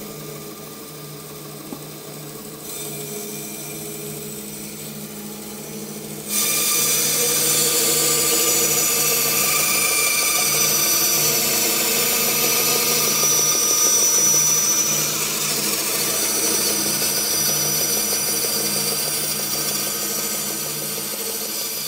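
Bandsaw running, then cutting through a wood blank on a circle-cutting jig from about six seconds in, where the sound jumps suddenly to a much louder, steady high-pitched hiss that lasts through the cut.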